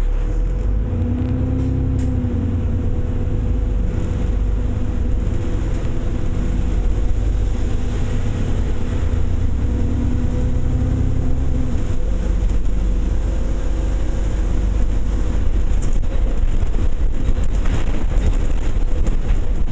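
A moving bus heard from on board: the engine and road noise make a steady low drone with a steady whine above it. The engine note rises and falls in the first few seconds, and there are a few sharp rattles near the end.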